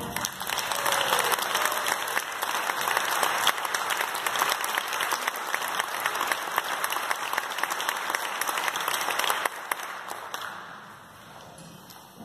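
Audience applauding at the end of a brass band piece, a dense patter of clapping that thins and dies away about ten seconds in.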